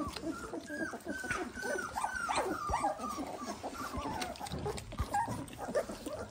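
A litter of 18-day-old Dalmatian puppies squeaking and whimpering: many short, high, downward-falling cries overlapping one another without a break.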